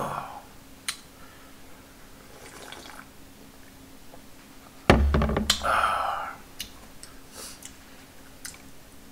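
Eating-table sounds: a bowl of udon broth set down on a wooden table with a heavy thud about five seconds in, followed by a short vocal exhale. Light clicks of chopsticks and dishes scattered throughout.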